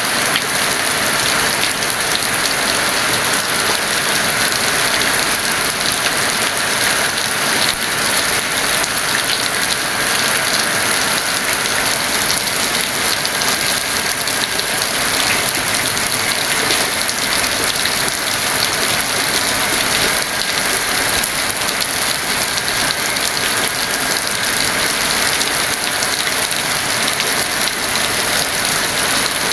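Heavy rain falling steadily: a dense, even hiss of raindrops with no pauses.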